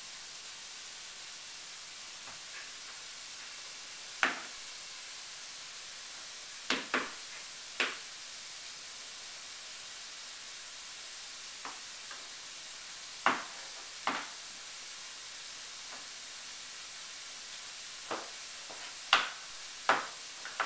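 Metal food cans knocking as a toddler sets them down on a wooden floor and a pantry shelf: about ten short, sharp knocks at uneven intervals, some in quick pairs, over a steady hiss.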